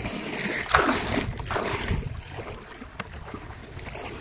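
Hands paddling a coracle across lake water: a few swishing splashes as the hands pull through the water in the first two seconds, then quieter lapping.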